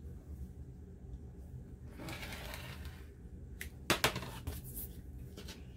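Handling noise at a cutting mat: a soft rustle for about a second, then two sharp plastic clacks as a rotary cutter is set down on the mat, followed by a few lighter taps.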